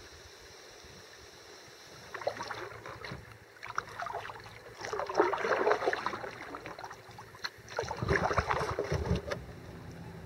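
Kayak paddle strokes in the water: splashing and dripping in three irregular bursts, the loudest a little past the middle.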